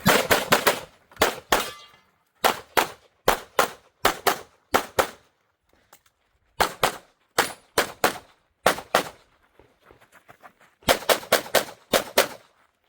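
Pistol fire, a SIG P320 with Grayguns work, shot in several fast strings of single shots with short pauses between strings as the shooter moves from target array to target array.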